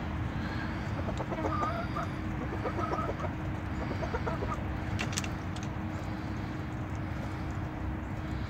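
Chickens clucking as they feed, a run of short, quick clucks in the first half, over a steady low background noise.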